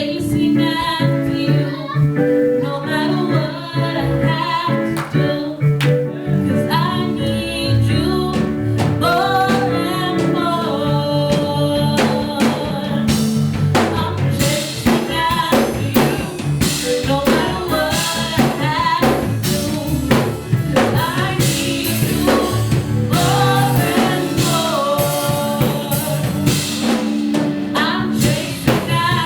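Live gospel praise-and-worship music: a woman singing the melody over a band with drum kit, the drums coming in more strongly about halfway through.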